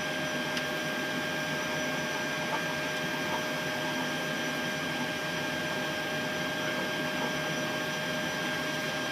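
Steady hum and hiss of a Boeing 737-800 flight deck during engine start, with several steady whining tones held at one pitch.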